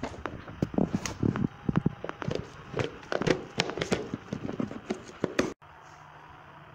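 Hard, dry, oven-baked dog-treat cubes clattering and rattling against each other and the plastic of a storage box as it is handled, a dense run of sharp clicks. It stops suddenly about five and a half seconds in, leaving a faint steady hum.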